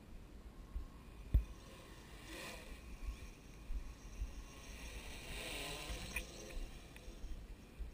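F550 hexacopter's six brushless-motor propellers whirring as it flies over, growing louder about two-thirds of the way through as it passes overhead. Wind rumbles on the microphone in uneven gusts, with a sharp thump about a second and a half in.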